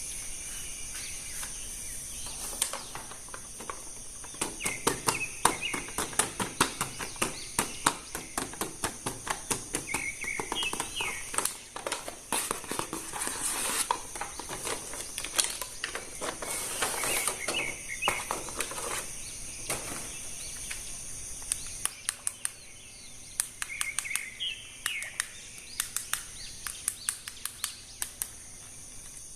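Birds chirping in short bursts every few seconds over a steady high-pitched hiss, with many quick clicks and taps throughout, thickest in the first two-thirds.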